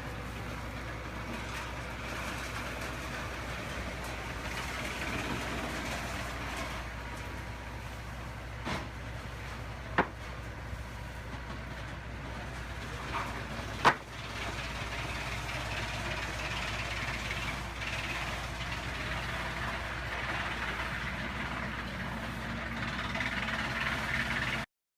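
Turner Mills portable bandsaw mill running, a steady machine noise with a low hum, broken by a few sharp knocks about 9, 10 and 14 seconds in, the last the loudest. The sound cuts off suddenly near the end.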